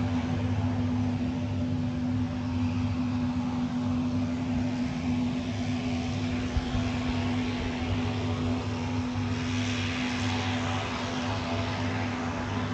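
Twin turboprop engines of a Cessna Conquest II running as the plane moves on the ground: a steady hum with a hissing rush that swells about ten seconds in.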